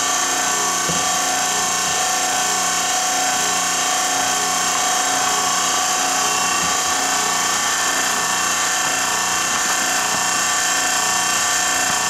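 Steady, constant machine noise: an even hiss with several unchanging tones running through it, like a motor or fan running continuously in a workshop.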